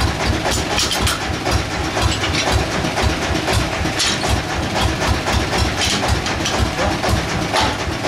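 A sawmill's engine idling, a steady low pulsing about three beats a second, with a few sharp knocks as the heavy log is handled on the carriage.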